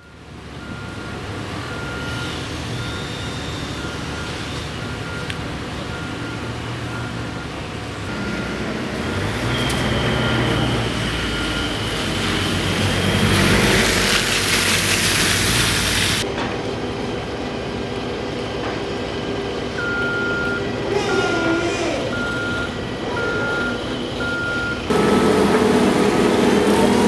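A vehicle's reversing alarm beeping at one steady pitch, a bit more than once a second, over a running engine on a working wharf. The beeping drops out in the middle while a loud hissing rush comes and goes, then starts again.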